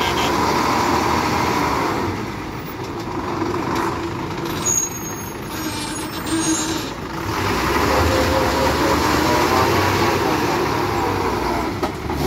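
Diesel engine of an Ashok Leyland ten-wheeler lorry working under a heavy load as the truck crawls around a hairpin bend. The engine note drops a couple of seconds in and rises again past the middle.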